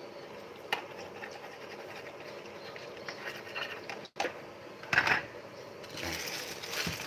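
Wooden spatula stirring and scraping in an aluminium wok of coconut-milk stew, a steady scratchy rasping. There is a sharp tap about a second in and a short, louder clatter around five seconds in.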